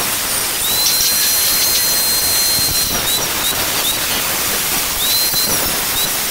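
Angle grinder with a thin cut-off disc cutting through thin galvanized light-steel channel: a loud, steady hissing grind of disc on metal over the motor's high whine, which drops away and climbs back several times as the disc bites into the steel.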